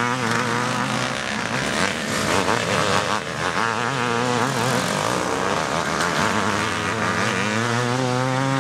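Several classic twinshock motocross motorcycle engines revving, their pitch rising and falling as they overlap; near the end one engine holds a steadier note.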